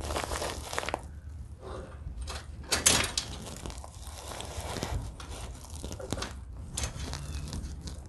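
Scrapes, clinks and rustling as a garage door extension spring and its hardware are handled and hooked up by hand, with a sharper metallic knock about three seconds in.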